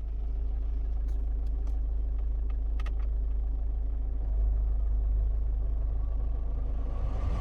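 SsangYong Korando C's engine idling with a steady low rumble, with a few faint clicks between about one and three seconds in.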